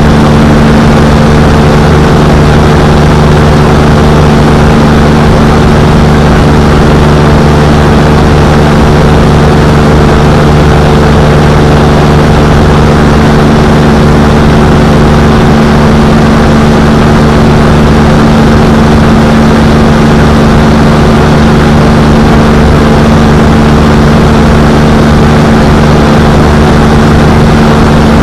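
Quicksilver Sport 2S ultralight's engine and pusher propeller running at a steady cruise in flight, loud and unchanging. A hum of several held tones sits over a rushing noise, heard from a small camera mounted under the airframe.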